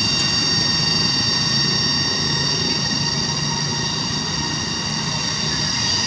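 Cicadas calling in chorus in the forest at dusk: a steady, high-pitched whine made of several unchanging pitches, over a low steady rumble.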